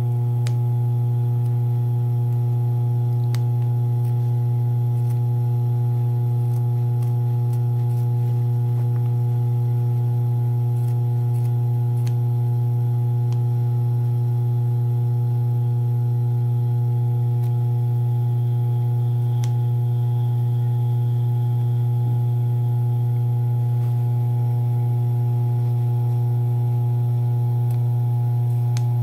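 Steady low hum of an industrial sewing machine's electric motor running idle, with a few faint clicks of scissors snipping cloth.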